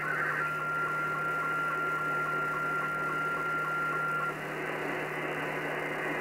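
Slow-scan television (SSTV) transmission on 27.700 MHz upper sideband, heard through a shortwave receiver's speaker. A regular pulsing pattern with a steady whistle-like tone sits in band-limited static, with a low hum under it. The steady tone stops about four seconds in, leaving mostly static.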